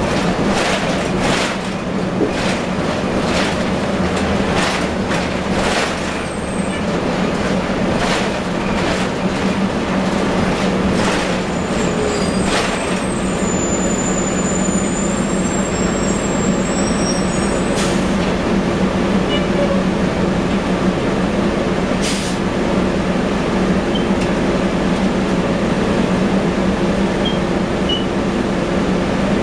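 Interior running noise of a 1998 Nova Bus RTS-06 city bus on the move: a steady engine and road drone. Irregular rattling knocks come from the body and fittings, mostly in the first half, and a second steady whine joins about halfway through.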